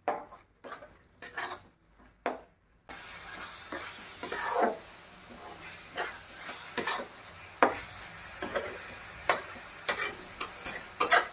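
Flat metal spatula scraping and stirring a thick, moist coconut, milk and sugar mixture around a metal kadhai, in irregular strokes with occasional taps on the pan. From about three seconds in a steady sizzle from the hot pan runs under the strokes, as the mixture cooks down until the milk is absorbed.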